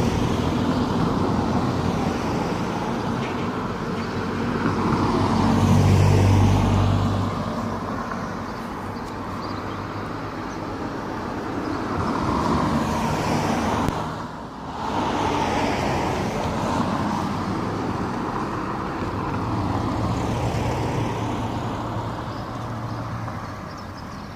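Road traffic: several cars driving past one after another, each swelling and fading away, the loudest around six seconds in and a short lull about halfway.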